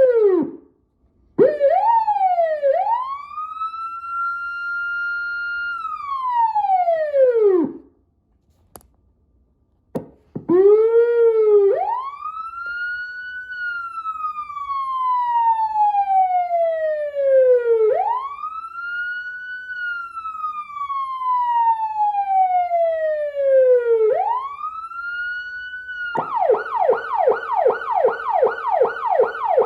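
Federal Signal PA-15A Director electronic siren sounding through its speaker: first manual bursts that rise, hold and coast back down, then after a short pause with a click or two a slow wail rising and falling about every six seconds. Near the end it switches to a rapid yelp of about four sweeps a second.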